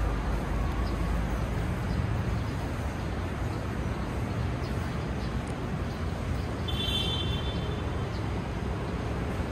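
Steady road traffic noise rising from the street below, with a brief high-pitched tone about seven seconds in.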